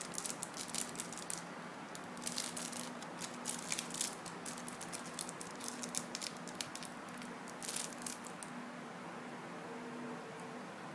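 Small clear plastic bag crinkling and crackling in the fingers in quick irregular bursts as a pre-made coil is worked out of it, dying away after about eight seconds, over a faint steady hum.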